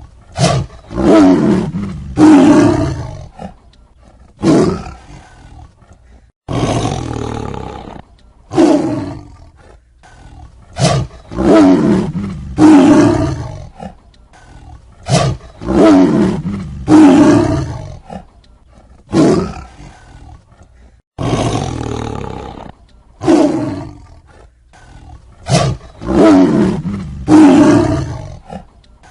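A tiger roaring over and over: loud, deep roars in short runs of two or three, with brief pauses between the runs.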